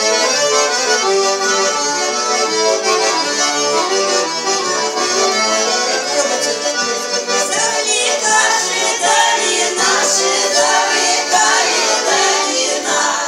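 Russian garmon (button accordion) playing a lively prokhodnaya, the village walking tune played for chastushki, then breaking off at the end.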